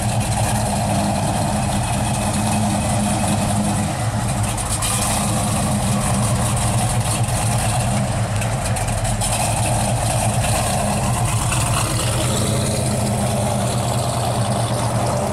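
Dodge Challenger R/T's V8 idling steadily through its dual exhaust.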